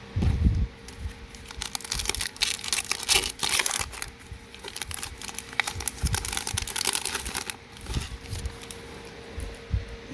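Foil booster pack wrapper crinkling and being torn open, a dense crackly rustle that is heaviest through the middle and eases off near the end.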